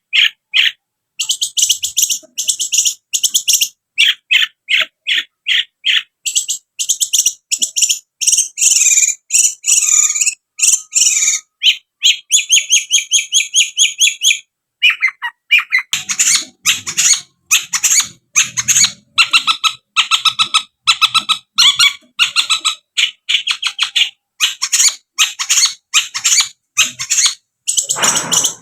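Long-tailed shrike (cendet) singing a loud, fast chattering song: trains of rapid, sharp, high notes, several a second, broken by short pauses.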